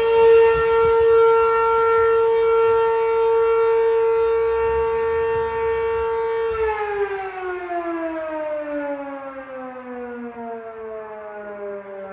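Mechanical fire siren holding a steady wail, then winding down, its pitch sliding slowly lower from about six and a half seconds in.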